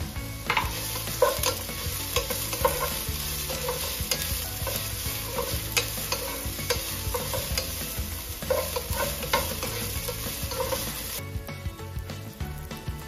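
Chopped onion sizzling in hot oil in a non-stick pot, stirred with a wooden spoon that knocks and scrapes against the pan many times. The stirring stops about two seconds before the end while the frying hiss goes on.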